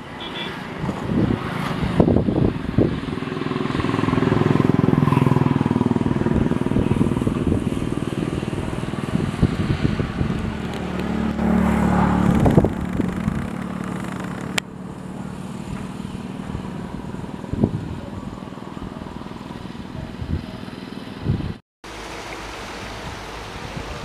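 Engines of passing road vehicles, swelling and fading as they go by, with a brief dropout near the end.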